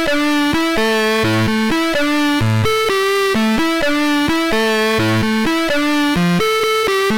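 Background music: a synthesizer or keyboard melody of steady, evenly paced notes over a repeating bass line.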